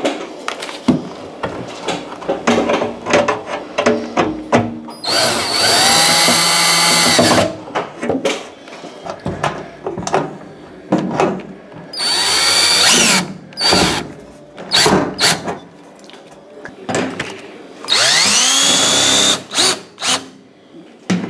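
DeWalt cordless drill/driver driving sheet-metal screws into an oven's metal panel. It makes three runs of about two seconds each, the motor winding up and then down. Short clicks and knocks sound in between.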